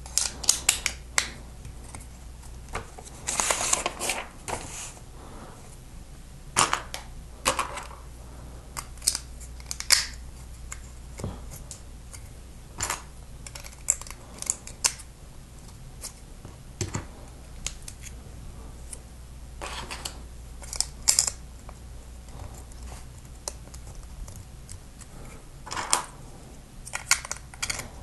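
Plastic Lego bricks and plates clicking as they are handled and pressed together, with irregular sharp clicks and a few short rattles of loose pieces, over a low steady hum.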